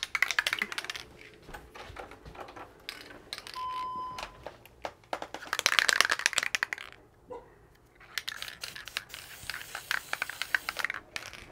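Three bursts of rapid rattling, crinkling clicks from materials being handled, with a single short beep about four seconds in.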